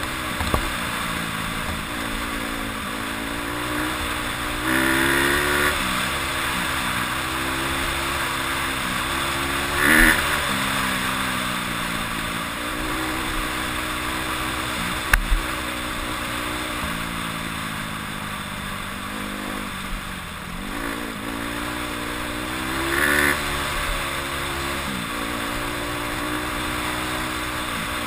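Honda CRF150R's single-cylinder four-stroke engine running under way, the revs rising and falling with the throttle, with louder rev-ups three times. A couple of sharp knocks come about halfway through.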